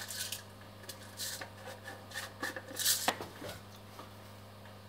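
Hands handling metal wire strippers, wires and a small plastic box of wire ferrules: scattered clicks and rustles, the sharpest about three seconds in, over a steady low hum.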